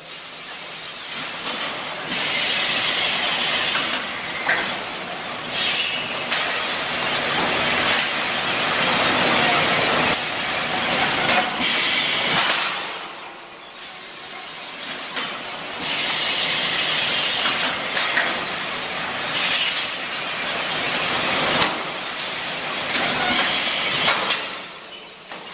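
Kimchi-making factory machinery running: a steady mechanical clatter and hiss with scattered clanks, swelling and easing every few seconds.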